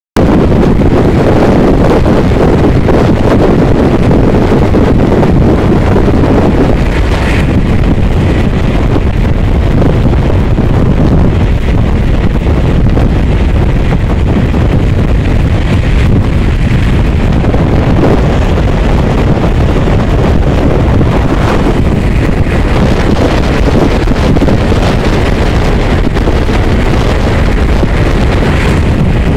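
Express passenger train running at high speed: steady rushing wind buffeting the microphone over the rumble of the coach wheels on the rails.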